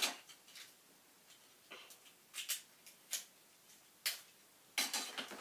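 Littlest Pet Shop plastic toy figurines being handled on a dresser top, giving faint, irregular light clicks and taps, with a quicker cluster of them near the end.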